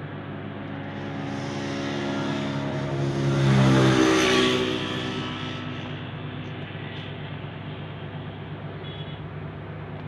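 Dawlance microwave oven running with a steady electrical hum, while a passing motor vehicle swells up, loudest about four seconds in, and fades away by about six seconds.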